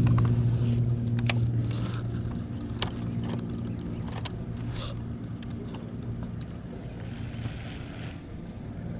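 A small fishing boat's electric trolling motor hums steadily, loudest over the first couple of seconds and then fading down. A few sharp clicks sound over it.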